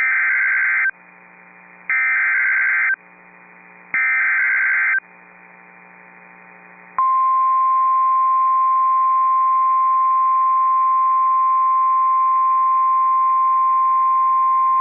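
Emergency Alert System SAME header: three harsh, buzzing data bursts about a second long and a second apart. From about seven seconds in comes the steady single-pitch 1050 Hz NOAA Weather Radio warning alarm tone, which announces that a warning follows.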